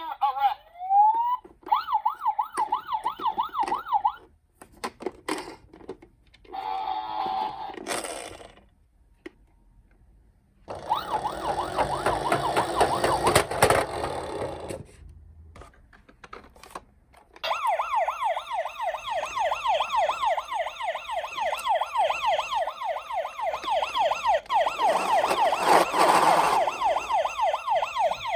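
Toy police car minicar's electronic siren sounding in a fast rising-and-falling yelp. It starts and stops several times, with the longest stretch in the second half.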